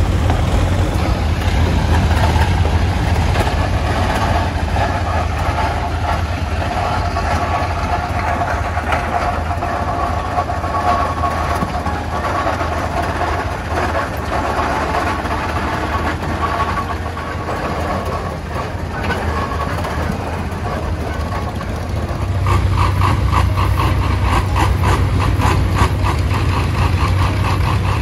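Vintage tractor engines running as the tractors drive slowly past, among them a large early steel-wheeled, chain-drive tractor. About three-quarters of the way through, a Farmall row-crop tractor's engine comes close and grows louder, with an even, rapid firing beat.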